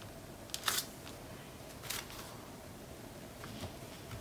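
Hands pressing and smoothing a sheet of patterned paper down onto cardstock: a few brief paper rustles, about half a second in and again about two seconds in, over faint room noise.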